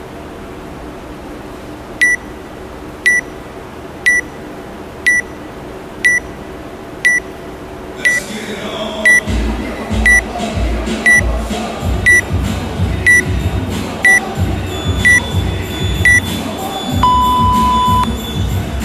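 Workout countdown timer beeping once a second through the last fifteen seconds, followed by one longer, lower tone that signals the start of the workout. Music with a steady beat comes in underneath about halfway through.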